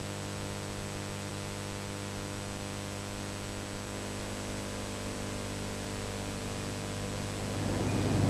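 Steady hiss with a low electrical hum and a faint high whine. A rougher, louder noise swells in near the end.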